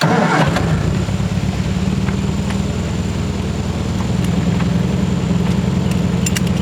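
1966 Triumph Spitfire's 1147cc four-cylinder engine running at a steady idle, with a brief noisy burst right at the start.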